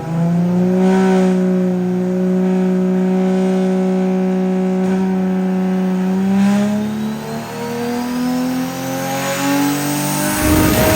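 Nissan RB26 inline-six with a big turbo on a chassis dyno, holding a steady speed for about six seconds and then pulling up through the revs in a dyno run, with a rising high whine over the engine note. Near the end the pull stops with a sudden burst of rushing noise.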